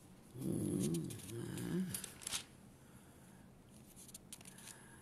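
A man's low, wordless murmur for about a second and a half. Then a few soft rustles and clicks of book pages being handled while he looks for a passage.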